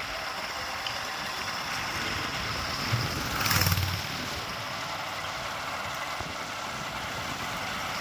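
A motor vehicle's engine running steadily under road and wind noise, with a brief louder swell about three and a half seconds in.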